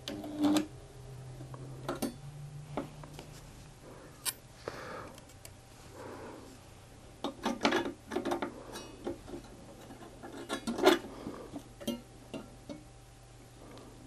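Clicks, taps and short metallic rings from a thin stainless steel strip ring as it is handled with pliers and pressed between the arms of a homemade spot welder built from a microwave-oven transformer, over a steady low hum. The sharpest snaps come about half a second in and about 11 s in.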